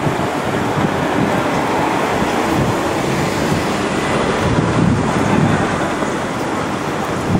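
Loud, steady rushing noise with a gusty low rumble.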